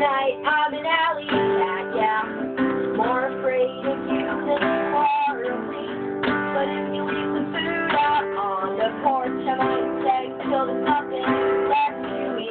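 Acoustic guitar strummed in chords, starting abruptly and keeping a steady rhythm.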